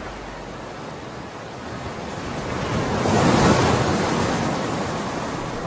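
Sea waves washing, one surge of surf swelling about three seconds in and then ebbing.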